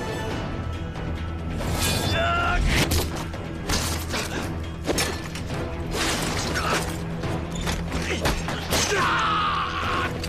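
Tense action film score under fight-scene sound effects: a run of hits, thuds and swishes, with a cry about 2 s in and a falling yell near the end.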